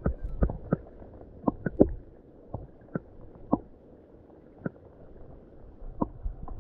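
Muffled underwater sound picked up by a submerged action camera: a low rumble with irregular clicks and knocks, several in the first two seconds, then sparser.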